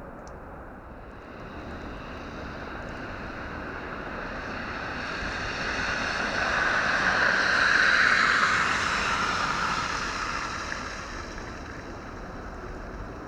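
A vehicle passing on a slushy, snow-covered street: the tyre hiss swells to a peak about eight seconds in, then fades away.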